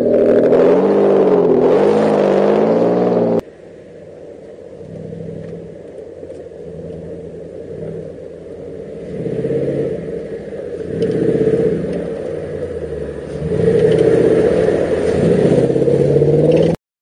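Off-road 4x4 engines labouring up a steep dirt track. First a close engine revs with a wavering pitch and is cut off abruptly about three and a half seconds in. Then a more distant engine rises and falls in pitch as it climbs, growing loud as it comes close near the end before stopping abruptly.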